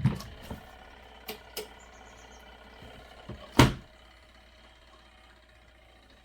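Several sharp knocks and clunks of hard objects being handled and set down, a pair at the start, a few lighter taps after, and the loudest single clunk about three and a half seconds in, over a faint steady hum.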